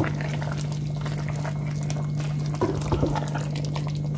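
Chicken stew of carrots and potatoes simmering and bubbling in a pot, with a few short knocks of the spoon against the pot about two and a half to three seconds in, over a steady low hum.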